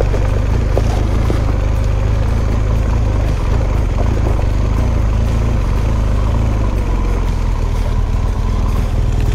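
BMW R1200GS boxer-twin engine running steadily at low speed on a rough forest track, with a few light knocks in the first couple of seconds.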